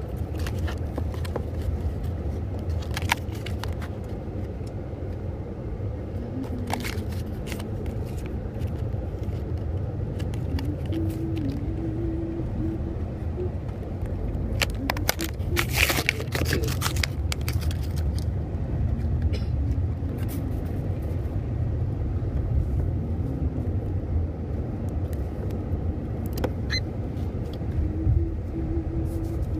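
Steady low rumble of a moving vehicle's cabin, with scattered clicks and crinkles of a plastic blister pack being handled and opened, busiest about halfway through.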